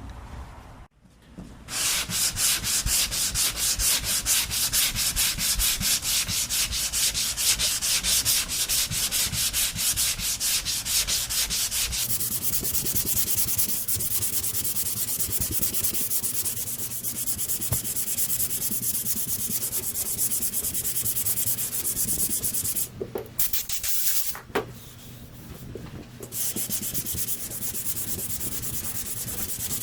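Hand block sanding of body filler with 180-grit sandpaper on a sanding block: quick, rhythmic back-and-forth rubbing strokes, which blur into a steadier rasp about twelve seconds in and stop briefly twice near the end.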